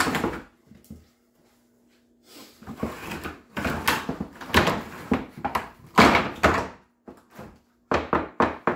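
Irregular knocking, thudding and scraping as coop parts are handled and fitted, with a short quiet gap about a second in and a quick run of sharp knocks near the end.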